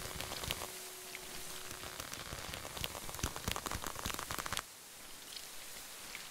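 Crackling and creaking of plant vines growing and twisting: a dense run of small clicks and snaps that thickens toward the end, then stops abruptly about four and a half seconds in, leaving a soft hiss.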